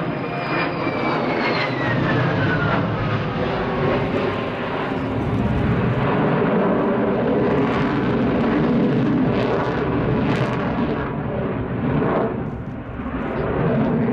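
Sukhoi Su-27's twin AL-31F turbofans running in afterburner during a display pass, a loud uneven roar. A whine in the engine sound falls in pitch over the first few seconds as the jet passes.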